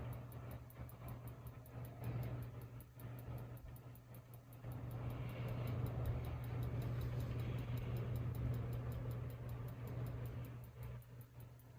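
Hampton Bay Minuet II ceiling fan running on high speed: a steady motor hum under the rush of moving air, with a regular light ticking. The air rush swells about five seconds in.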